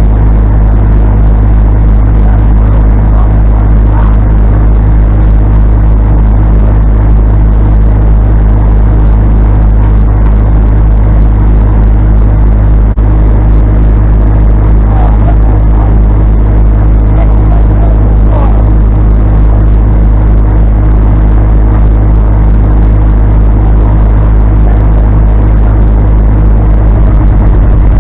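Diesel engine of heavy equipment running loud, close and steady, as a chain tow pulls a stuck bulldozer out of the mud.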